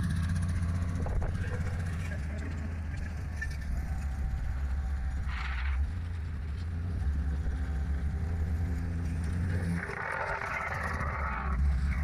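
Petrol vibratory plate compactor and a small tandem asphalt roller running with a steady low engine drone. Brief bursts of brighter noise come about halfway through and again near the end.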